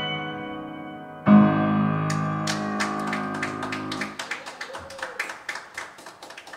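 Grand piano: a high note rings and fades, then a full final chord is struck just over a second in and left to ring out. A small audience then claps, the scattered claps thinning out toward the end.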